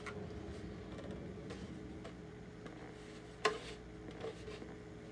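Handling sounds of a plastic stormtrooper armor piece and a rag: light rubbing and small ticks, with one sharp click about three and a half seconds in, over a steady low hum.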